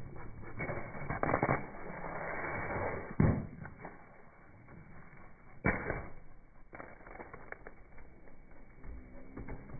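A car tyre rolling slowly over a row of small plastic cups filled with white liquid, bursting them one after another: three sharp pops with splattering liquid, the loudest about three seconds in, and crackling plastic between.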